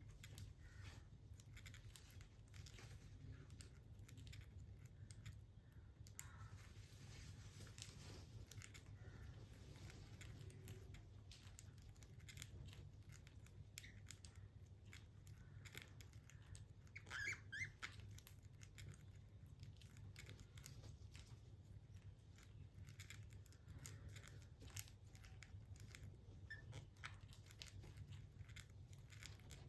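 Pet budgies faintly clicking and crackling, like beaks nibbling and feet scratching, with a brief burst of short chirps around the middle. A low steady hum runs underneath.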